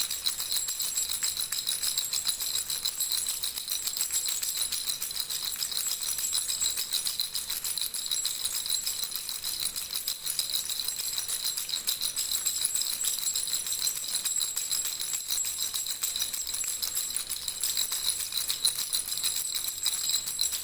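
Baby rattle shaken without pause: a dense, steady jingling with a high, bell-like ringing.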